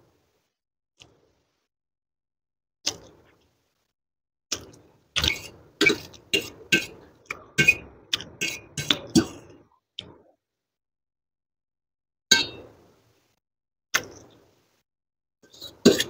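Close-miked eating of instant noodles: short, sharp clicks and smacks with silence between them, a few on their own and then a quick run of about a dozen over some five seconds.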